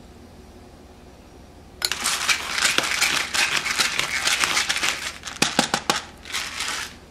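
A pepper grinder grinding black pepper, a dense, uneven crackle of clicks that starts about two seconds in and stops near the end.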